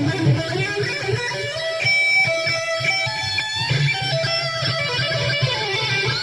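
Guitar being played, a run of notes changing every second or so and ringing into one another.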